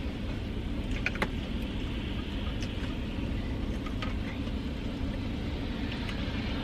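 Chewing a breaded chicken strip, with a few faint wet clicks and smacks over a steady low rumble.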